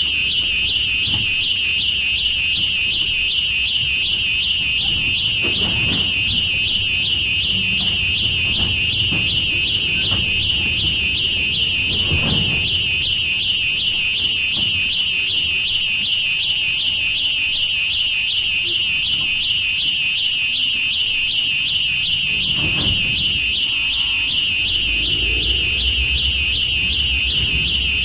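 A loud, steady, high-pitched alarm-like tone warbling several times a second runs over a faint low rumble. The rumble swells briefly three times, and a deeper rumble builds near the end.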